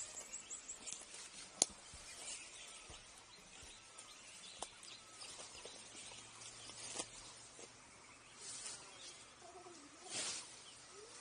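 Quiet outdoor ambience on a brushy hillside, with faint bird calls and scattered small ticks. A sharp click about a second and a half in is the loudest moment, and brief rustles come near the end.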